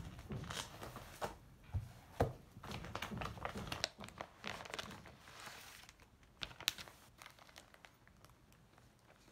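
Crinkling and rustling of handled packaging or paper, with small sharp clicks and knocks, busiest in the first six seconds and then sparser.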